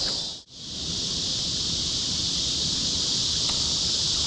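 Steady high-pitched chorus of insects, which drops out briefly about half a second in and then returns unchanged.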